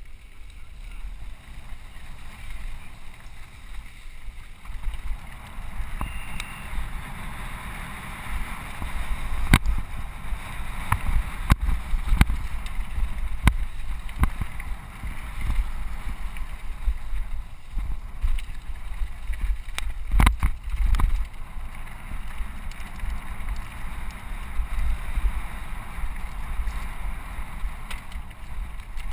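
Mountain bike ridden over a rocky gravel track, heard from a helmet-mounted camera: a steady rush of wind on the microphone and tyre rumble, broken by sharp clacks and rattles as the bike hits stones, several of them around the middle and a cluster about twenty seconds in.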